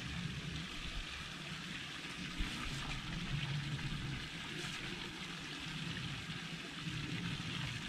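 Water running steadily from a metal spout pipe into a hollowed-log fountain trough.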